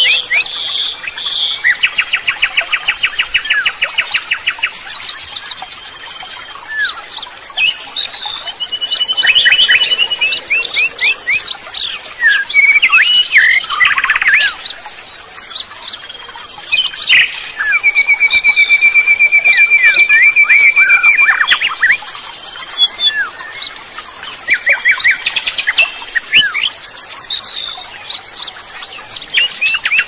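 Several songbirds singing and calling over one another: quick high chirps and whistles, with a fast rattling trill about two seconds in and a long, even trill lasting about three seconds past the middle.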